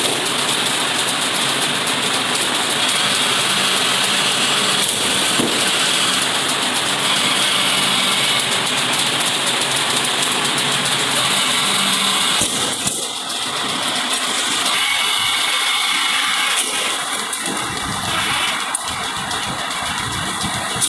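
Loud, steady noise of woodworking machinery running in a door and board factory, a dense whirring hiss with a faint low hum underneath.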